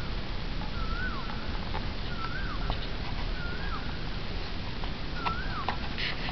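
A short high animal call that rises and then drops sharply, repeated about every second and a half, over a steady low rumble with a few faint clicks.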